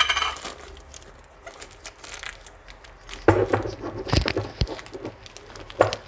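A plastic bag crinkling and rustling as it is handled and pulled out of a glass jar, with a few sharp clicks and knocks against the glass, loudest in the second half.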